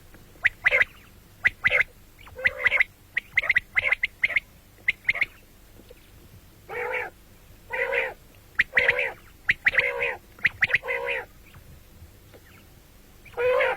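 Common quail calling: repeated short, sharp notes, then a run of longer, harsher calls about halfway through.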